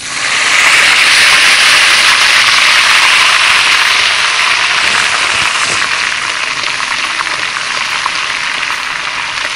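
Field-crab roe mixture hitting hot oil and fried garlic in a wok: a loud sizzle that starts suddenly as it is poured in, then eases slowly into steady frying as it is stirred.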